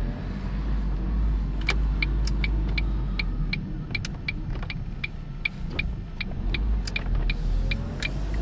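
Inside the cabin of a 2002 Ford Focus being driven: steady low road and engine rumble, with no grinding or squeal from the freshly replaced front brakes. From about two seconds in, a turn signal ticks steadily, about two and a half ticks a second.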